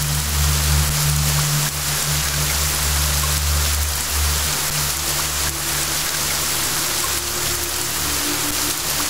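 Steady rain hiss layered over soft ambient music of low held notes, with a higher note joining about halfway through.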